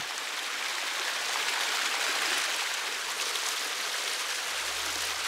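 Small mountain stream cascading over rocks, a steady rushing of water.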